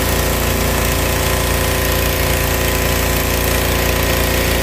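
Ai-Power APW 3500 PRO pressure washer's 223 cc petrol engine running steadily under load, with the hiss of the high-pressure water jet spraying from a bent nozzle lance.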